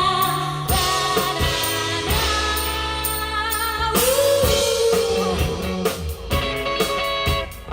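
Live band playing a song with a woman singing over guitar and drum kit.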